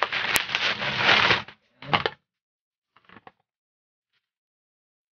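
Plastic bubble-wrap packaging crinkling and crackling as it is handled, dense for about a second and a half, then one short burst and a few faint clicks.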